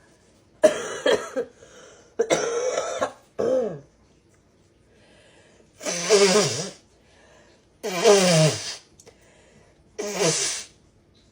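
A person blowing their nose hard, six loud honking blasts one to two seconds apart, several falling in pitch at their end.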